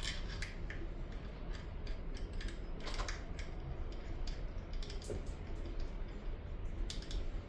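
Light, irregular clicks and taps of small metal engine parts and hand tools being handled, with a cluster of sharper clicks about three seconds in.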